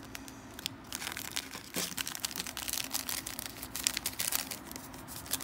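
Foil drink-mix sachet crinkling and crackling as it is handled and folded in the hands, a run of small irregular crackles.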